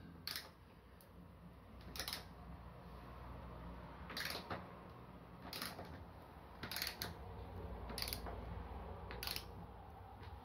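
Socket ratchet clicking in about seven short bursts, roughly one every second or two, as its pawl ratchets back between strokes while a bolt is tightened into a timber stud frame to pull the joint closed.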